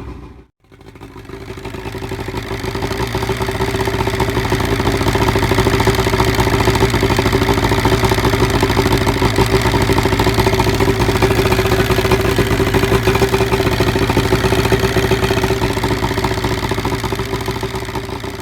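1975 Evinrude 70 hp two-stroke outboard motor running steadily at a fast, even beat. It drops out for a moment just after the start, then comes back up over a couple of seconds.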